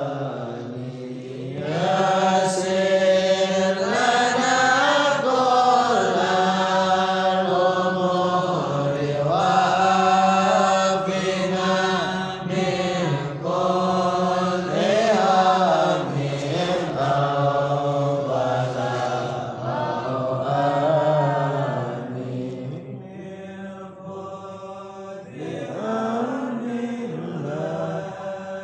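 Islamic sholawat chanted by voices in long, drawn-out melodic phrases, the notes held and wavering, with a short lull near the end before the chant picks up again.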